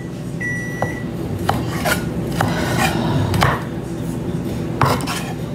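Chef's knife slicing bell peppers on a cutting board: rasping cuts through the pepper and irregular knocks of the blade on the board. Near the start a kitchen appliance gives a single high electronic beep.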